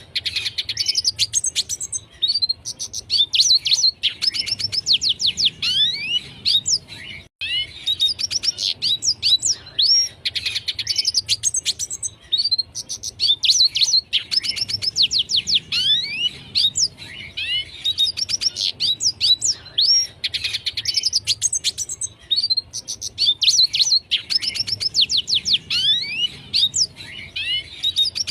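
Red siskin singing continuously: phrase after phrase of fast twittering with quick downward-sweeping whistles, separated only by brief pauses.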